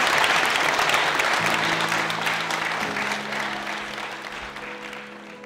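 A small room of people applauding, the clapping fading away. Soft background music with long held notes comes in about a second and a half in and rises over the fading applause.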